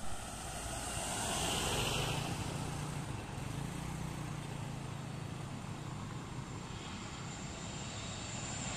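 Lockheed C-130J Super Hercules on landing approach, its four Rolls-Royce AE 2100 turboprops and six-bladed propellers making a steady drone with a low hum. It grows louder over the first couple of seconds, holds, then swells again near the end as the aircraft comes closer.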